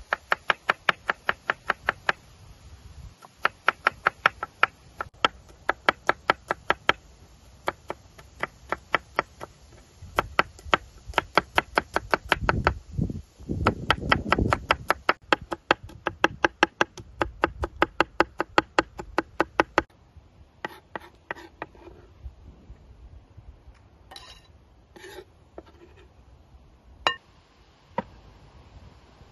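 Chef's knife chopping garlic on a wooden cutting board: quick, even strokes about four or five a second, in runs with short pauses. About two-thirds of the way through, the chopping stops and only a few scattered taps and clicks follow.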